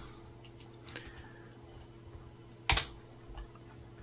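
Clicks from a computer keyboard and mouse: a few faint clicks, then one sharp, louder click a little under three seconds in. A steady low hum runs underneath.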